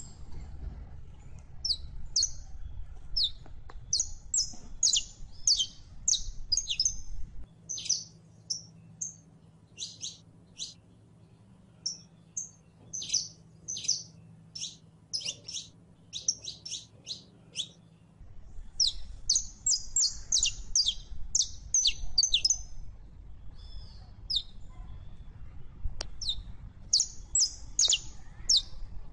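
Saffron finch (Sicalis flaveola) singing: phrases of rapid, short, high-pitched chirping notes separated by brief pauses. A faint low hum runs underneath and drops out for about ten seconds in the middle.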